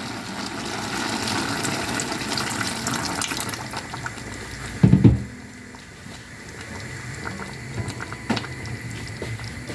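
Running water for about four seconds, then a loud thud about five seconds in, followed by quieter kitchen sounds with light clicks.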